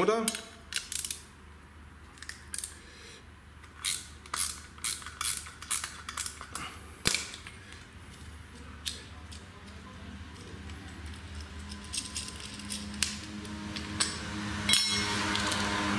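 A 10 mm socket and nut being worked by hand to take a reflector off its metal bracket: a run of sharp metal clicks and clinks in the first half. In the second half a steady machine hum comes up and grows louder.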